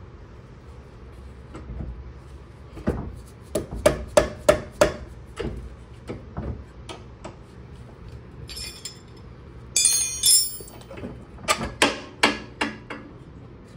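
Metal knocks and clinks of tools and suspension parts being handled on a car's rear suspension: a quick run of sharp knocks, a short burst of ringing metallic clatter, then more knocks near the end.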